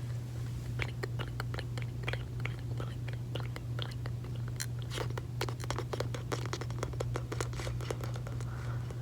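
Close-up gum chewing and wet mouth sounds: a rapid run of sticky clicks and snaps that grows denser about halfway through, over a steady low hum.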